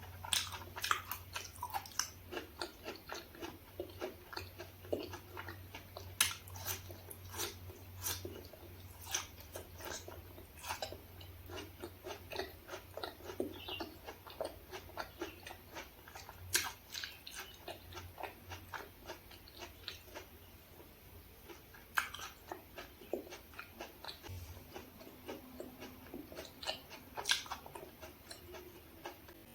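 Close-miked eating: a person chewing with irregular wet mouth clicks and smacks, several a second at times.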